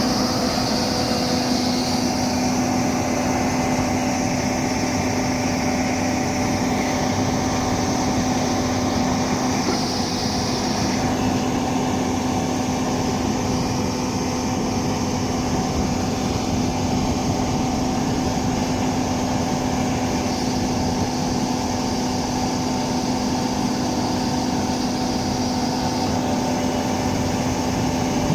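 Doosan 300LC-V excavator's diesel engine running at a steady speed, a constant hum that does not rise or fall.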